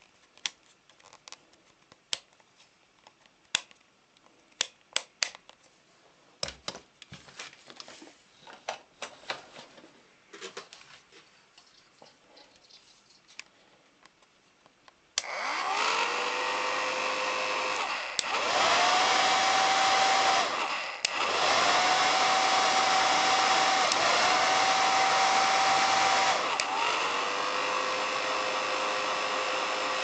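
Scattered clicks and handling knocks, then about halfway in a Philips HP8116 hair dryer's fan motor starts and spins up with a rising whine over the rush of air. It is switched between speeds: the whine steps up to a higher pitch with two brief dips, then drops back to the lower pitch near the end.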